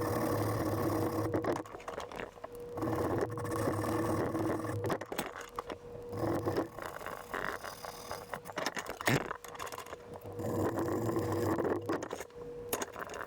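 A small power tool worked against metal in three separate runs, with scraping, over a steady background hum and scattered clicks and knocks.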